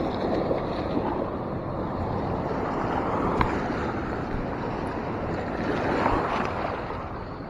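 Fast-flowing river water rushing steadily, with a few faint clicks.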